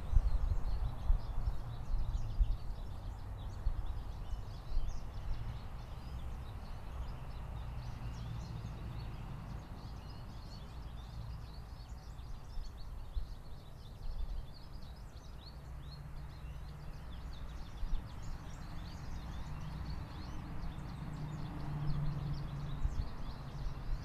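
Backyard bird ambience: many faint, short, high bird chirps keep coming over a steady low rumble, with the rumble louder for the first second or two.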